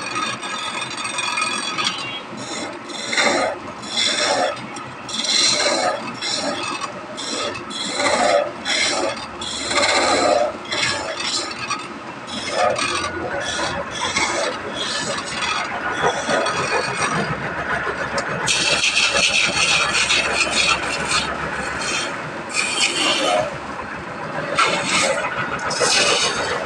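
A hand tool scraping wood in repeated short strokes, like rasping or filing, with a longer, denser stretch of scraping about two-thirds of the way through.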